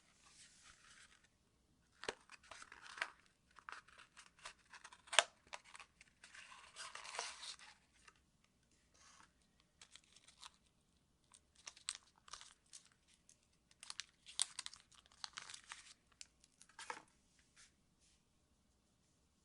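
Package wrapping being opened by hand: irregular tearing and crinkling with sharp clicks and snaps, the loudest a single snap about five seconds in.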